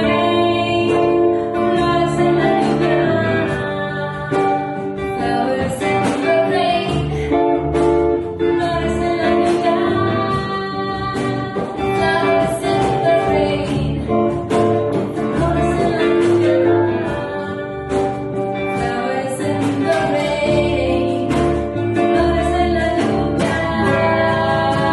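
Live acoustic band playing a song: female vocals over acoustic guitar, upright double bass and hand percussion.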